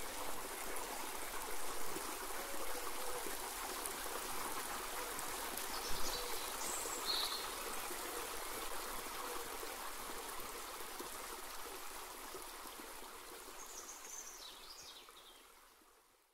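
Steady flowing water like a stream, with a few short high chirps over it, slowly fading out near the end.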